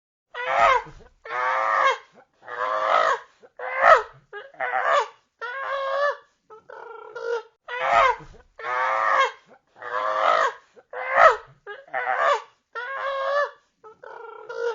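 Chimpanzee calls: a run of about a dozen calls, each half a second to a second long and bending in pitch, coming about once a second with short gaps between them.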